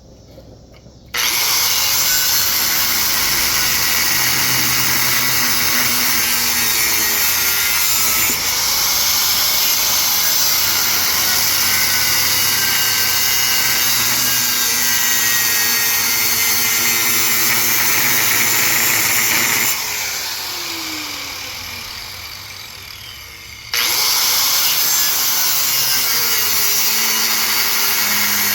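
A power tool cutting into the metal of a large electric motor being scrapped for copper. It runs loud and steady, is let off about two-thirds of the way through and winds down with a falling whine, then starts up again and cuts on.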